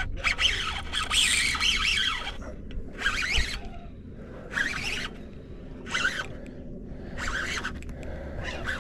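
Baitcasting reel's drag buzzing as a hooked fish, likely a threadfin salmon, pulls line off in a series of short runs, about one every second or so. The longest run comes about a second in and lasts about a second.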